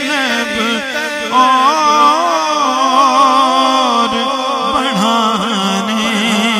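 A man singing a naat (Urdu devotional praise poem) through a microphone and sound system, drawing out long, wavering, ornamented notes. About a second in, his voice climbs to a louder, held higher line.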